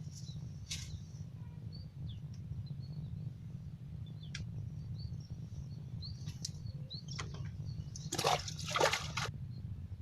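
Water splashing in a short burst a little after eight seconds in, over a steady low rumble, with faint high bird chirps here and there.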